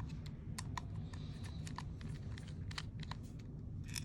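Irregular light clicks and taps of small parts and tools being handled while an airsoft gun's gearbox is taken apart, over a steady low hum.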